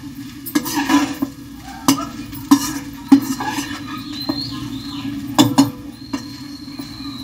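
Perforated metal spatula scraping and knocking against a wok while stir-frying rice, with irregular clanks of metal on metal as the rice is turned over.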